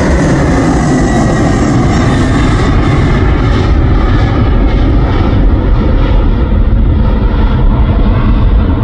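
Boeing 747-400 freighter's four jet engines at takeoff power as it climbs away just after liftoff: a loud, steady noise, deepest at the bottom, whose high hiss fades from about halfway through as the plane draws away.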